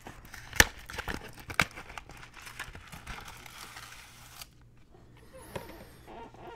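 Cardboard frozen-meal box being torn open and handled: crinkling and tearing with a few sharp snaps in the first two seconds, quieter after about four seconds.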